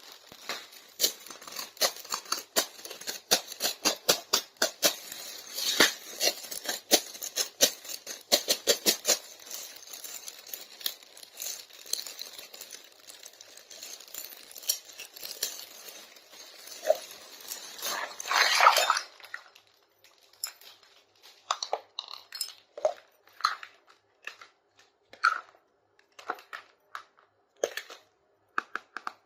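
Hands unpacking a small plastic toy kitchen set: packaging crinkling and tearing with rapid clicks and taps, and a loud rustle about two-thirds of the way in. Then sparser single clicks and taps of small plastic pieces being handled.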